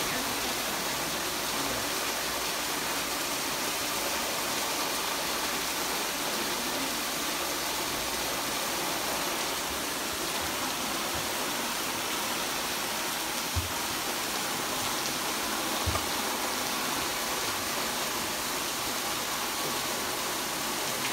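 Water pouring steadily from a leaking ceiling and splashing onto a flooded tile floor, with two short dull thumps about two-thirds of the way through.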